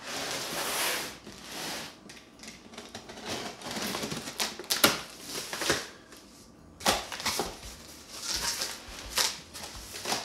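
Packing tape on a cardboard box being slit and pulled with a knife: irregular scratchy rasps with sharp clicks and taps, and the cardboard flaps rustling open near the end.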